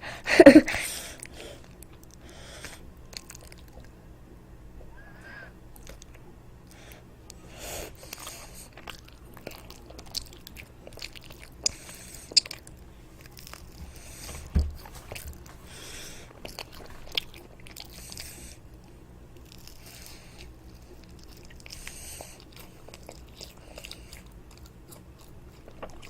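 A child biting and chewing toast close to the microphone: scattered crunchy bites and soft chewing, with the loudest burst of sound about half a second in.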